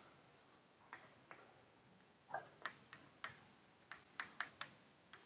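Faint, irregular taps and clicks of a marker writing on a whiteboard, about nine short ticks spread over a few seconds in an otherwise quiet room.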